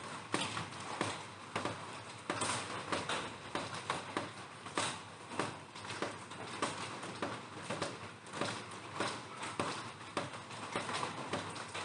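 Raindrops hitting a plastic roof: irregular sharp taps, several a second, some louder than others, over a steady hiss of rain.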